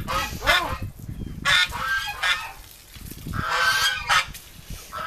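Geese honking: several loud, repeated calls in bouts.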